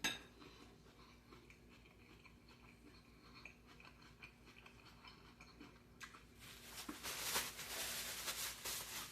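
A person chewing food close to the microphone, with small wet mouth clicks. About six seconds in it turns into a louder spell of crisp crunching.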